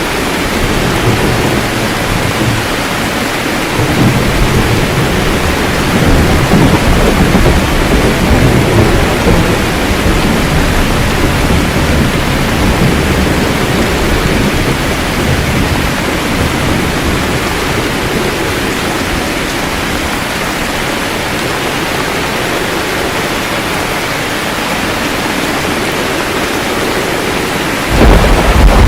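Steady heavy rain with thunder rumbling underneath: the rumble swells a few seconds in, rolls on, and fades through the second half. A new, louder thunderclap breaks in right at the end.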